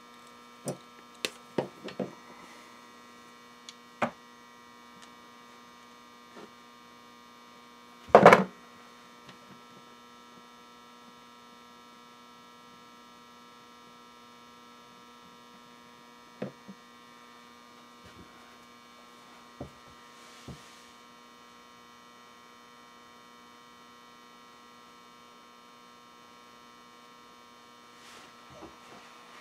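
Steady electrical mains hum with a stack of tones, over which wire strippers and hookup wire click and snip in a scatter of short sharp sounds; a louder knock comes about eight seconds in, and a few more clicks follow later.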